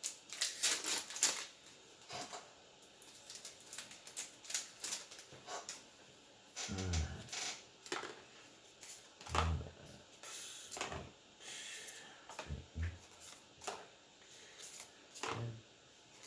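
Magic: The Gathering trading cards being handled, flipped and slid against one another, giving irregular short clicks and rustles, with a few soft low thumps.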